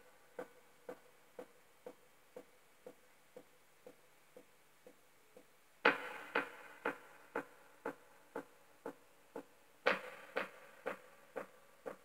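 Telecaster-style electric guitar notes struck and repeated by a delay effect: echoes about two a second that slowly fade. Fresh notes are struck about six seconds in and again near ten seconds, each setting off a new trail of fading repeats.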